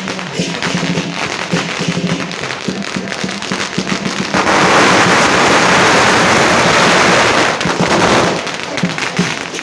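A string of firecrackers going off in a rapid crackle, thickening into a louder, denser run of bangs from about four to eight seconds in, with drumming underneath.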